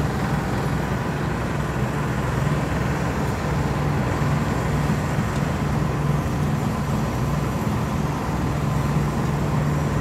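Engine of road-paving machinery running steadily at a constant speed, an even low hum with no change in pitch.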